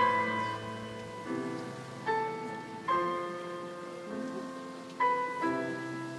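Classical piano music: slow chords struck about once a second, each left to ring and fade.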